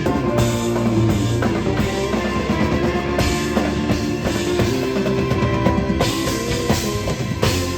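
Loud show music with a drum kit beat, in a rock style.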